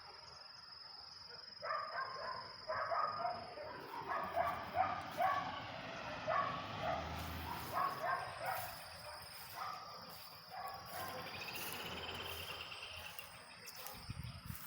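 A run of short animal calls repeating about once or twice a second for several seconds, over a steady high insect trill.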